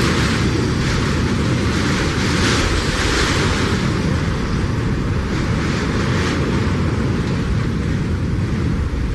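Hurricane wind blowing hard and continuously: a steady low rumble under a rushing hiss that swells and fades in gusts every second or two, easing slightly in the last few seconds.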